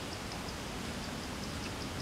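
Steady hiss of pig intestine cooking on a hot stone slab over a small wood fire. A faint, high insect chirp repeats about five times a second.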